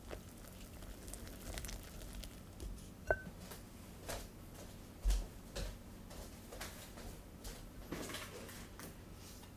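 Madeleine batter being stirred in a mixing bowl: irregular soft scrapes and squishy taps of the utensil in the thick batter, with a sharp tap that rings briefly about three seconds in and a dull thump about five seconds in.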